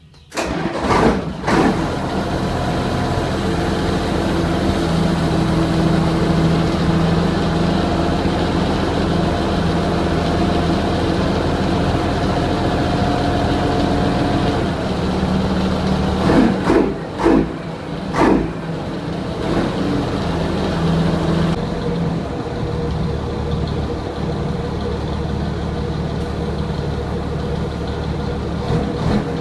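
1971 Scania L-110 truck's inline-six diesel engine (fitted with a 112 kit) being started, catching within about a second and then idling steadily. About halfway through it is revved briefly three times before settling back to idle.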